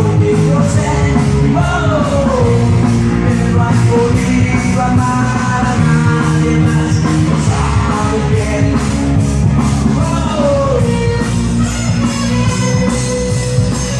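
Loud rock urbano music played through a sonido sound system: a Spanish-language rock track with a steady drum beat, guitar and some singing.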